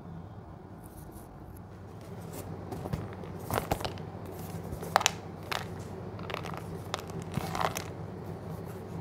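Cardboard ice cream carton being handled in the hands, giving crackles, scrapes and sharp clicks that start about two and a half seconds in. Under it runs a low steady hum.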